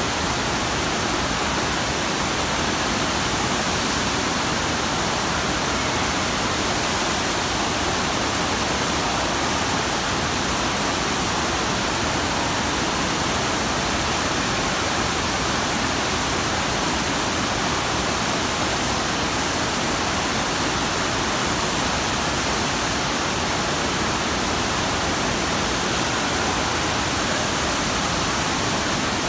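FlowRider surf simulator's sheet of water rushing steadily up the slope and breaking into spray along the wave.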